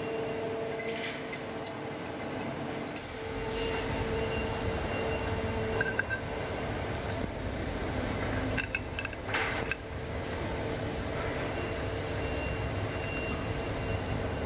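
Steady workshop hum and rumble, with a few light clicks and clinks of enclosure parts being handled, around six seconds in and again around nine seconds in.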